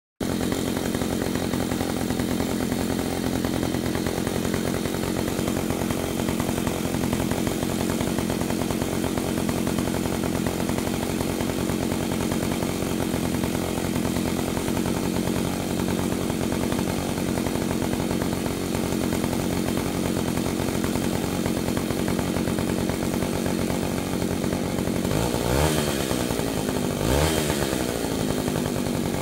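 Dolpima BK-3A two-stroke chainsaw engine running steadily with the chain not cutting; its engine speed swings up and down twice near the end.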